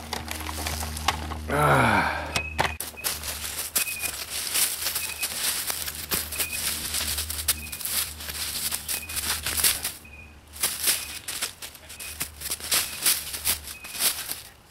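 Footsteps crunching and rustling through dry leaf litter and fallen sticks on a forest floor, with debris being kicked aside, as irregular crackles and snaps. A short high peep repeats every second or two underneath.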